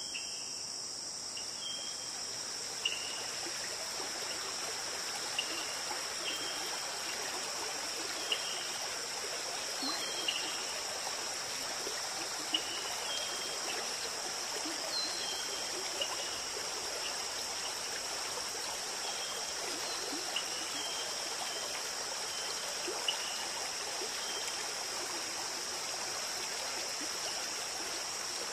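Nature ambience: steady running water with a constant high insect drone and short, high chirps every two to four seconds.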